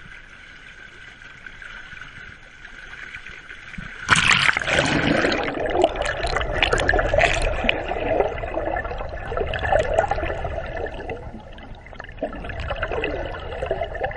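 Light lapping of sea water, then about four seconds in a loud splash as the camera plunges underwater, followed by muffled rushing and bubbling of water against the camera housing.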